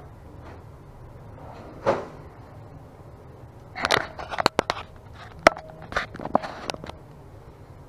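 Handling noise from a hand-held camera being moved about: a single knock about two seconds in, then a quick run of knocks and clicks for about three seconds from four seconds in.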